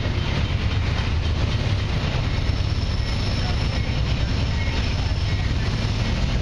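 Diesel freight locomotives of a Canadian Pacific train approaching under power: a steady, heavy low engine rumble.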